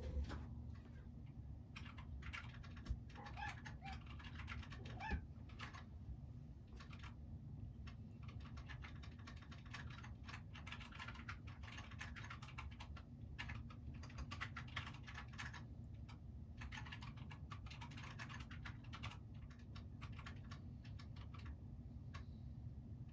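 Rapid, irregular light clicking and tapping throughout, like keys on a keyboard, with a few slightly louder knocks near the start and about five seconds in.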